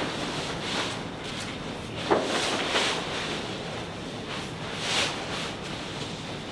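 A large hanging sheet rustling and crinkling in short swishes as it is pulled and shifted from above, with one sharper crackle about two seconds in.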